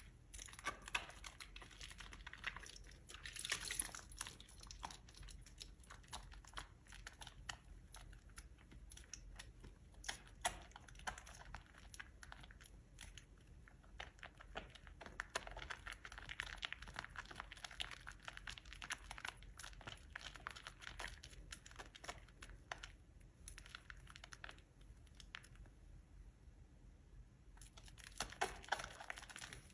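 Soft soap being scraped and cut close to the microphone: a dense run of small crackles and crunches, louder around three to four seconds in and again near the end.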